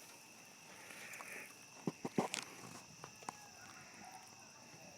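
Night insect chorus: a steady, high, continuous trill. A few sharp knocks sound about two seconds in and once more just after three seconds.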